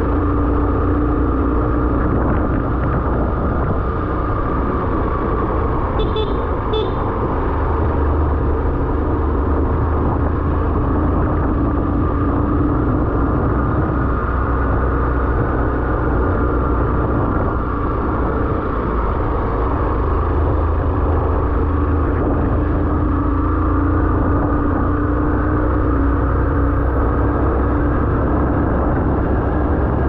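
Vehicle engine running steadily while driving, its pitch drifting gently up and down over a low rumble. Two short high horn toots sound about six seconds in.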